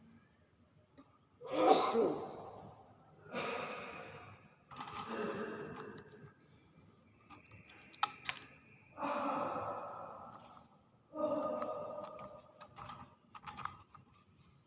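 Common hill myna imitating human coughs and sneezes: five breathy calls of about a second each, with a couple of sharp clicks between them.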